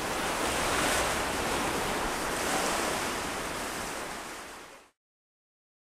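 A rushing, surf-like noise that swells in, slowly fades, and cuts off suddenly about five seconds in.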